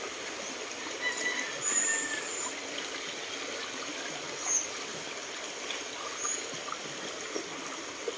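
Shallow stream trickling steadily over stones, with a few short, high chirps over it.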